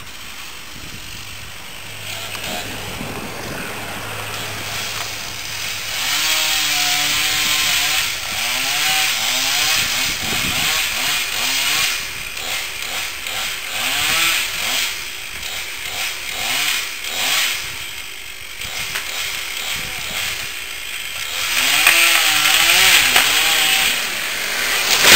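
Chainsaw cutting through a large tree trunk, its engine pitch rising and falling again and again as the saw bogs and revs in the felling cut. Right at the end comes a loud crash as the tree comes down.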